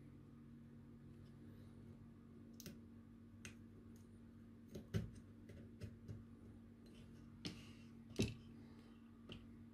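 Faint, scattered small clicks and taps from a small circuit board being handled in a plastic PCB holder as transistor legs are pushed through its holes, with a sharper click about eight seconds in. A faint low steady hum runs underneath.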